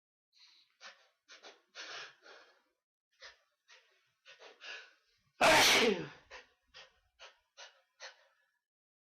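A man's sneezing fit: a string of short, catching breaths, then one loud sneeze about halfway through, followed by more short breaths.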